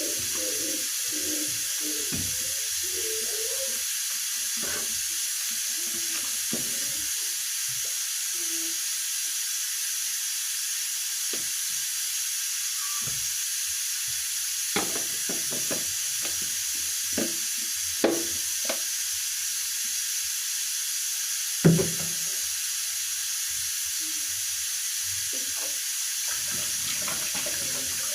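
A steady hiss throughout, with a few scattered light knocks and clatters from kitchen containers and food being handled; the loudest knock comes about two-thirds of the way in.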